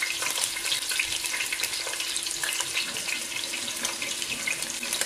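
Lamb shanks searing in hot oil in a stainless steel pot: a steady sizzle full of small crackling pops.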